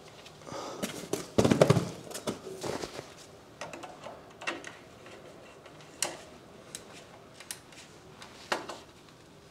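Handling noise from pliers and an earth cable being worked into a surge protection device's terminal: scattered sharp clicks and knocks, with a louder rustling scrape about a second and a half in.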